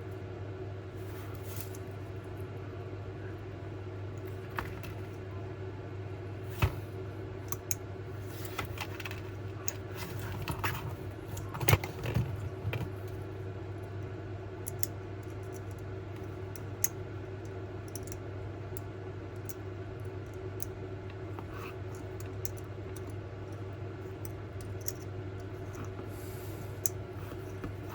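Light clicks and taps of small metal parts and tools being handled while fitting a model locomotive's wheel pickups, scattered and busiest around ten to twelve seconds in. A steady low hum runs underneath.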